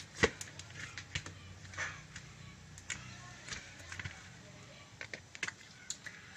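Homemade glue slime being squished and poked by hand, making irregular soft clicks and pops, with one louder pop just after the start.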